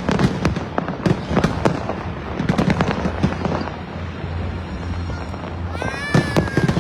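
Aerial fireworks bursting: many bangs and crackles in quick succession, thickest in the first half.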